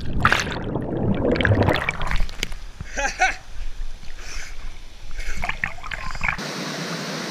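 Water churning and splashing around an action camera carried into a deep pool by a jumping swimmer: muffled underwater turbulence, then splashing swim strokes at the surface with a few brief vocal sounds. About six seconds in it cuts to the steady rush of a small waterfall.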